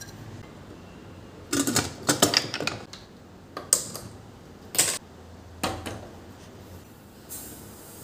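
A run of sharp, ringing clinks and clatters of steel cookware, then single sharp clicks as a gas stove burner is lit with a handheld gas lighter. Near the end comes a soft hiss of dry grain being poured into a steel bowl.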